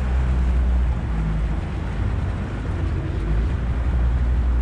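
Outboard motor on a Progress aluminium motorboat running steadily under way, a constant low hum under a steady rushing noise.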